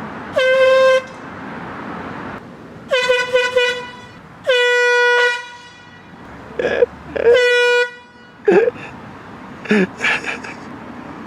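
Handheld air horn sounding one steady tone in separate blasts: a short blast at the start, a quick run of toots about three seconds in, a longer blast just after, and another short one around seven seconds in. Brief voices come between the later blasts.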